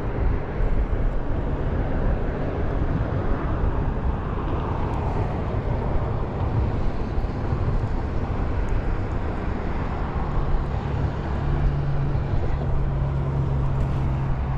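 Steady rumble of road traffic, with a low steady hum joining in about ten seconds in.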